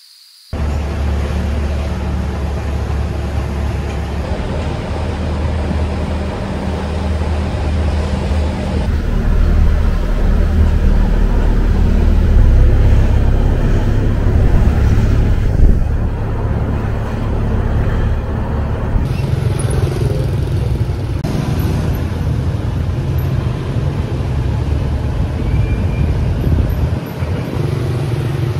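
A steady low engine drone with road and wind noise from riding in an open-sided tuk-tuk, then busy street traffic of motor scooters and cars going by. The sound starts abruptly about half a second in and shifts at several cuts.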